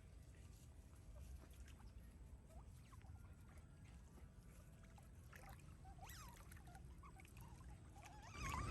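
Near silence with faint, scattered high squeaks and chirps from otters, and a louder squealing call building right at the end.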